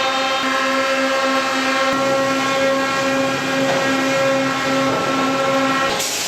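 Industrial machinery running with a steady hum of several held tones, cutting off abruptly near the end.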